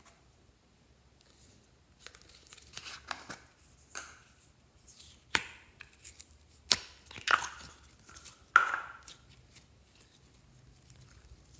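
Glossy slime being handled and mixed by hand: soft sticky crackles, then a few sharp pops in the middle.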